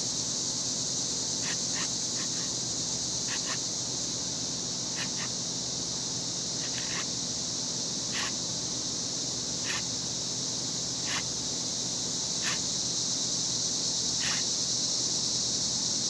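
A steady high cicada chorus, with the rasp of a Silky GomBoy curved pruning saw cutting a notch in a wooden handle. The saw makes a short stroke about every one and a half seconds.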